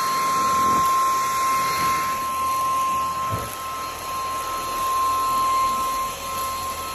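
Cordless stick vacuum cleaner running steadily: a high motor whine over a rushing air noise, stopping at the very end.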